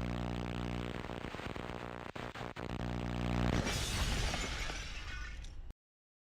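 A steady pitched drone, then about three and a half seconds in a crash-like burst of noise that fades over about two seconds before the sound cuts off abruptly.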